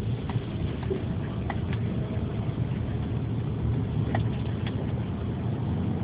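Steady low rumble of a car driving, heard from inside the cabin, with a few faint clicks.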